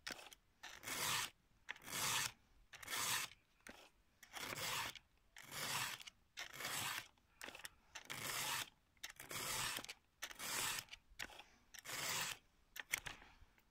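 Round chainsaw file rasping through the cutter teeth of a Husqvarna chainsaw chain in steady strokes, about one a second, as the chain is sharpened by hand.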